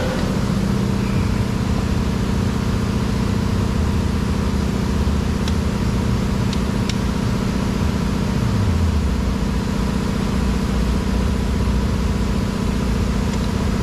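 Steady low motor hum, like an engine idling, with a few light clicks around the middle and one near the end.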